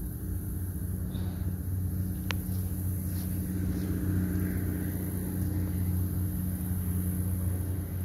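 A steady low motor hum, with one sharp click a little over two seconds in.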